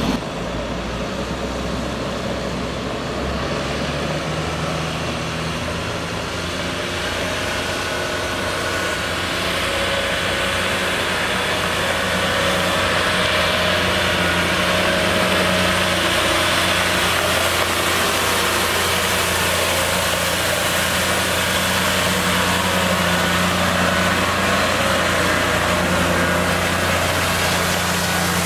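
Caterpillar C7 inline-six diesel of a Ford F750 water truck running steadily as the truck drives and sprays, with the hiss of water jetting from the spray heads onto gravel. The sound grows louder about ten seconds in.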